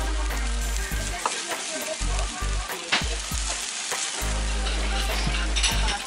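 Monjayaki batter liquid sizzling on a hot iron teppan griddle as it is poured from a metal cup, with scattered scrapes and taps of small metal spatulas on the griddle.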